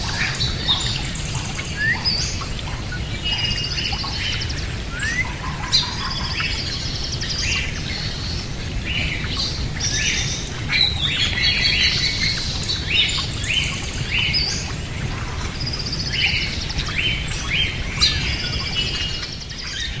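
A flock of pet parrots chattering, with many short chirps, whistles and calls overlapping one after another, over a steady low background rumble.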